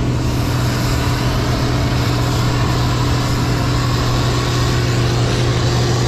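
Diesel engine of harvest machinery running at a steady speed, a constant low drone with no change in pitch.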